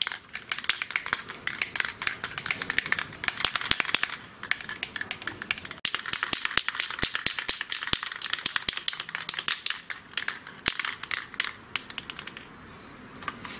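Aerosol can of water-based matte black spray paint being shaken hard, its mixing ball rattling rapidly inside. The rattling stops about a second before the end, just before spraying.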